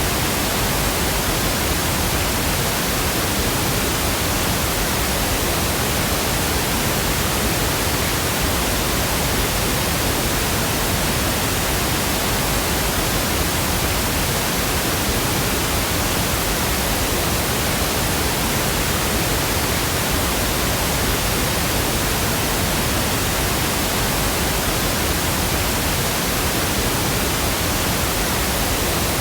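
Synthetic pink noise: a continuous, even hiss across the whole range, unchanging in level.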